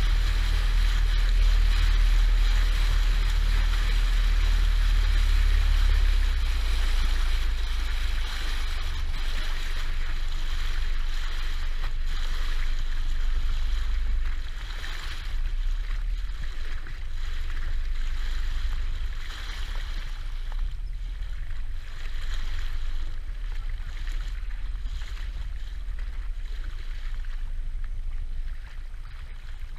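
RIB tender boat under way: a low rumble with water rushing past the hull. The sound eases off about halfway through and again near the end as the boat slows in towards the beach.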